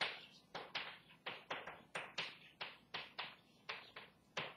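Chalk writing on a blackboard: a quick run of sharp taps and short scrapes, about three or four a second, as each letter is stroked. A louder tap comes near the end.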